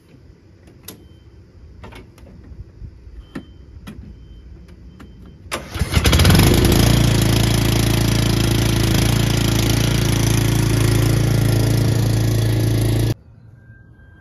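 Cub Cadet XT1 LT42 riding mower engine cranking and starting about five seconds in, then running steadily until the sound breaks off abruptly near the end. Before it starts there are a few light clicks.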